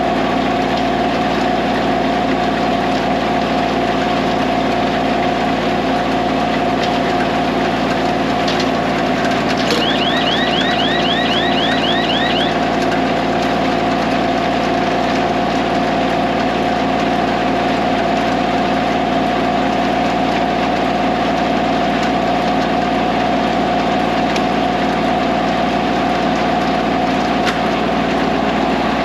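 Diesel tractor engine running steadily under load, driving a small round hay baler. About ten seconds in, a short run of quick high chirps, about a dozen, sounds over it.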